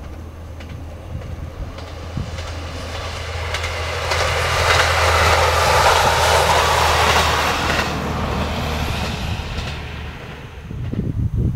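A JR Kyushu KiHa 125 single-car diesel railcar passes by. Its engine hum and wheel-on-rail noise swell as it approaches, are loudest about five to seven seconds in, and fade as it moves away. A short low rumble follows near the end.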